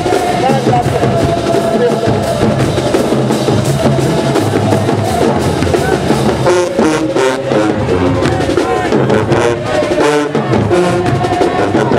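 HBCU-style marching band playing loudly in the stands: sousaphones, trombones and trumpets carry a sustained melody over a driving drumline beat.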